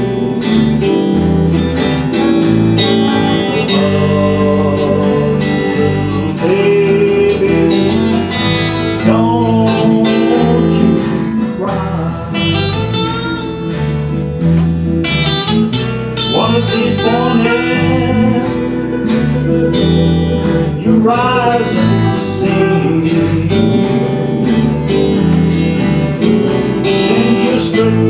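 Acoustic string band of guitars, bass and mandolin playing an instrumental break: strummed chords and a bass line under a plucked lead melody with sliding, bent notes.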